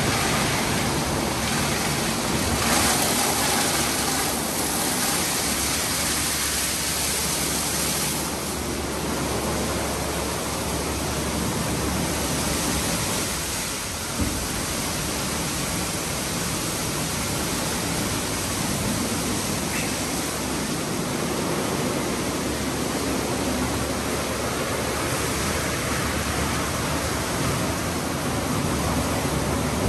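Istobal M9+ gantry car wash running its sealant stage: a steady rush of water spray and wash brushes working over the car, with one brief knock partway through.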